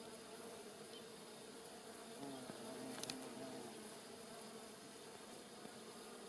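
White-tailed bumblebee buzzing in flight around flowers. Its low hum swells for about a second and a half in the middle as it comes close. A brief click comes about three seconds in.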